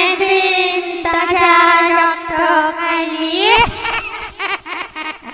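A high voice holding one long wavering note for about three seconds, then sliding up and breaking into short quick notes.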